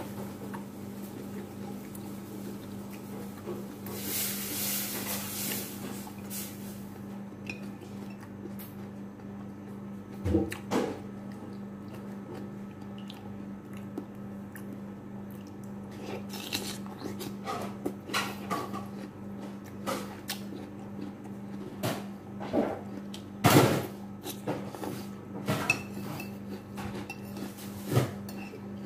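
Metal spoon clinking and scraping against a ceramic plate as it scoops up sauce, in irregular sharp clinks that come thicker in the second half, over a steady low hum.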